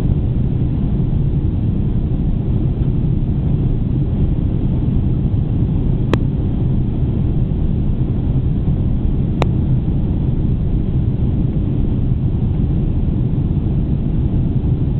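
Steady low roar of a Boeing 747-400's engines and airflow heard inside the cabin during the climb after takeoff. Two short clicks come a few seconds apart around the middle.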